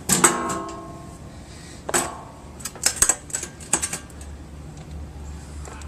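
Metal parts and tools being handled during scrapping: two sharp metallic clanks, one at the start and one about two seconds in, each ringing on briefly, followed by a quick run of clicks and knocks.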